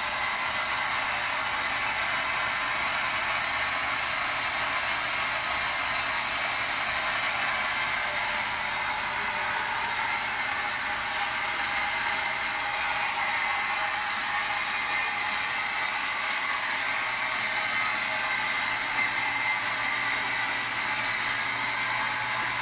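Compressed-air abrasive jet from a nozzle blasting powdery grit onto a clamped metal test plate in an erosion/wear test rig: a steady, high-pitched hiss.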